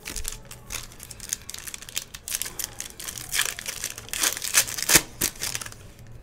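Foil wrapper of a Panini Contenders Draft Picks trading card pack crinkling and tearing as it is pulled open by hand, a dense crackle with the sharpest tear about five seconds in.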